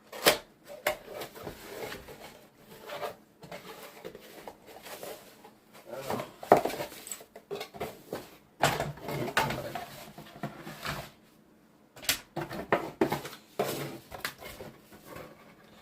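A keyboard's cardboard box and packaging being opened and handled: irregular scraping, rustling and knocks with short pauses.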